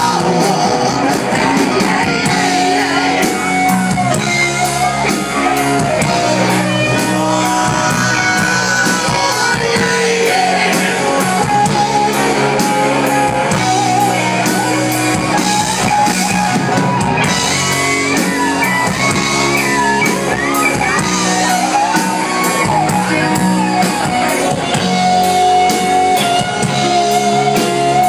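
Live rock band playing loud, with a lead vocal over electric guitar and bass guitar.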